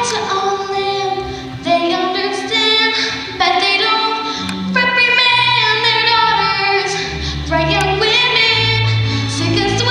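A young girl's solo singing voice in a slow musical-theatre song, with long held notes, over an instrumental accompaniment that sustains low bass notes.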